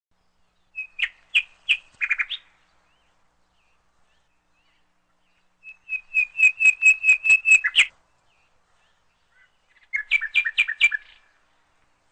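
A bird calling in three bouts of rapid, sharp repeated notes: about a second in, midway, and near the end. The middle bout is the longest, about a dozen quick notes in two seconds.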